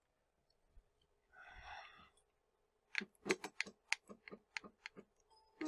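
A faint short breath, then a run of about ten sharp, irregularly spaced clicks over two and a half seconds: computer keyboard keys tapped to step-jog the CNC mini mill while setting a zero with an edge finder.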